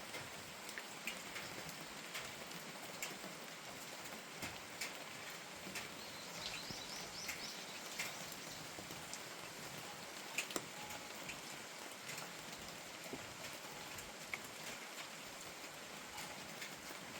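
Steady rain falling, with scattered sharper drips landing on surfaces. About six seconds in, a bird gives a short run of high chirps.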